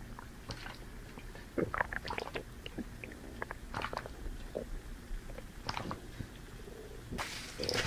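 A person chewing a mouthful of banana: scattered wet mouth clicks and smacks. A louder rushing noise starts near the end.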